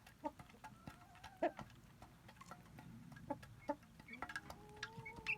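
Chickens clucking in short calls among scattered small clicks, with a longer held animal call starting near the end.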